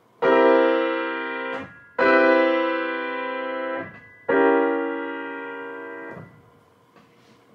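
Grand piano: three chords struck one after another, each starting sharply and fading for about one and a half to two seconds before the next, the last dying away about a second before the end.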